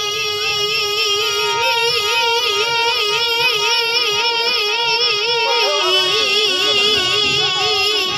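A boy singing with a strong, wavering vibrato, accompanied by a harmonium's held reed notes.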